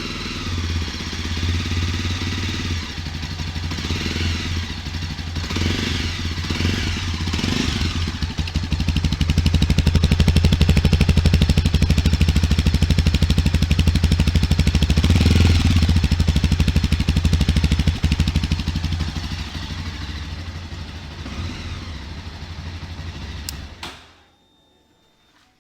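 Mahindra Mojo 300's single-cylinder engine running through its exhaust. It is revved in several short rises in the first few seconds, then held louder at higher revs for about ten seconds before dropping back. The sound stops suddenly near the end.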